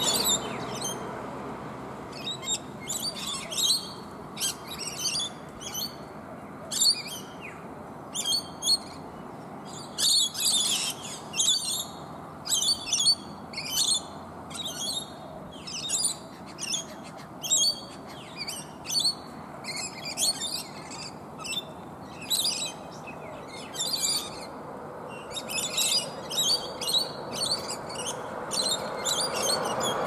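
Rainbow lorikeets feeding, giving short shrill screeching calls that overlap in quick bursts, several a second, over a steady low rumble that grows louder near the end.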